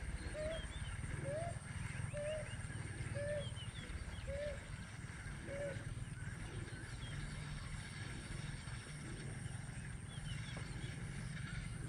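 Wild animal calls: a run of short mid-pitched notes, about one a second, that stops about six seconds in. Higher chirps come and go throughout over a low rumble.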